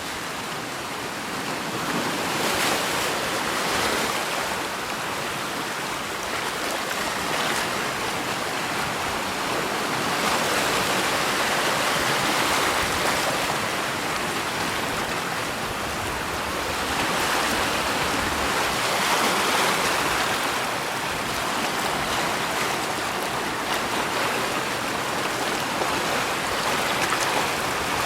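Waves washing in: a steady rush of water that swells and eases every few seconds.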